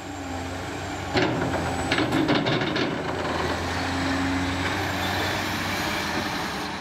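Intro sound effect of a steady mechanical rumble, like a heavy vehicle running. A sharp hit comes about a second in, and a quick run of hissing, clicking strokes follows around two seconds in.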